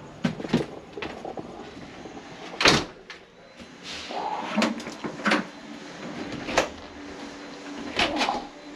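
A wooden house door being shut and locked: a loud knock of the door closing about three seconds in, amid a series of sharper clicks and knocks from the knob, latch and deadbolt being worked.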